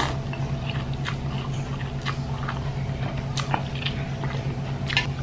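A person chewing a mouthful of noodles, with soft wet mouth sounds and scattered small clicks.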